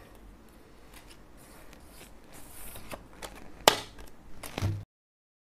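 Playing cards being handled at a table: faint rustling with a few small clicks and one sharp click a little over halfway through, then the sound cuts to dead silence near the end.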